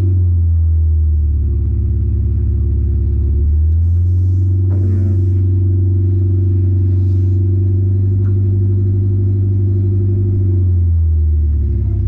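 Honda Civic EK hatchback's engine, fitted with Skunk2 Alpha Series headers, heard from inside the cabin while driving at low revs: a steady low drone whose pitch shifts a few times as the revs change.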